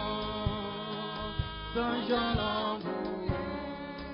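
Gospel song sung by a group of voices through microphones, with short thumps of a beat under the singing.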